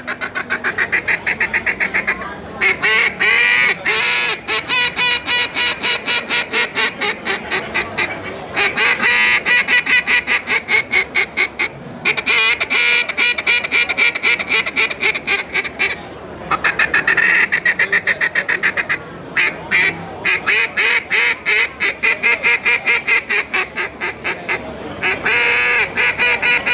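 Southbound Outdoors Chopper single-reed duck call blown in long runs of fast, short quacks, broken by brief pauses every few seconds.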